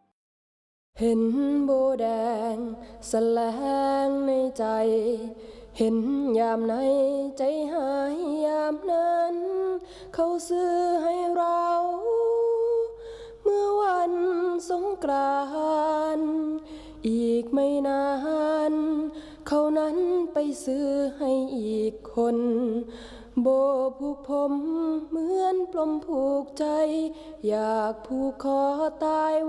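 A woman singing a song in Thai, starting about a second in after a moment of silence.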